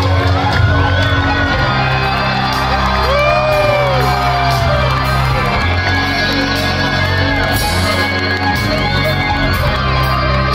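Loud live rock music heard from the audience, with a heavy, sustained bass line. Audience members whoop and shout over it several times.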